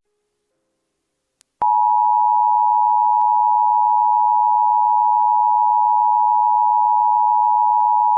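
Emergency Alert System attention signal: a steady two-tone alarm tone (853 and 960 Hz sounded together) starting about a second and a half in after a short silence, the signal that precedes the spoken alert message.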